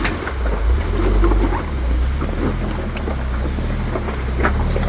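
Off-road vehicle engine running with a steady low rumble, with a few faint knocks over it.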